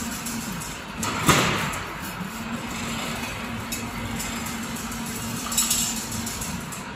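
Automatic chain link fence weaving machine running: a steady motor hum, with a loud knock that rings away about a second in and a shorter, sharper rattle near the end as the machine works through its weaving cycle.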